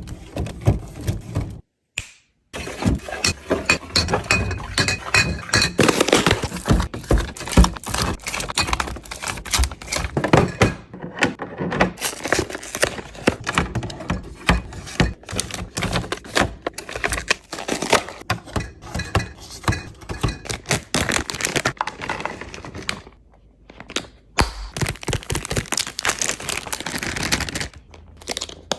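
Restocking a refrigerator: a quick string of knocks, clicks and light thuds as food containers, bottles and packaging are handled and set down on the shelves, with a few brief pauses.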